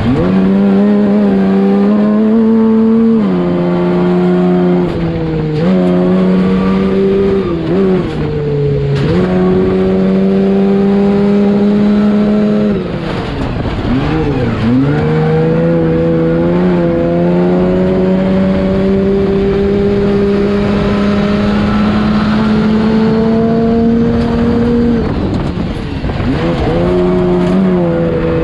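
Baja off-road race truck's engine heard from inside the cab while driving hard around a dirt track. The engine note holds high and steady, then drops sharply and climbs back up several times as the throttle comes off and goes back on.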